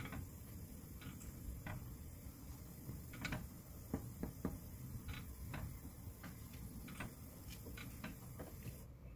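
Wooden spoon clicking and scraping against the bottom and sides of a black earthenware pot as a setting egg mixture is stirred, in irregular light knocks.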